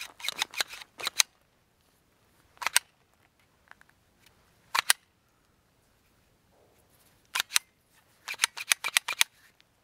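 Slide of a mud-caked Glock 19 pistol being racked and pushed by hand: sharp metallic clacks, a quick cluster at the start, two single clacks, then a pair and a fast run near the end. The slide is failing to go fully into battery, probably from mud in the locking recesses.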